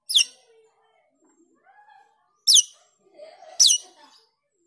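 Asian glossy starling calling: three sharp, high whistles that slur steeply downward, one near the start, one about halfway and one near the end, with soft squeaky chatter between them.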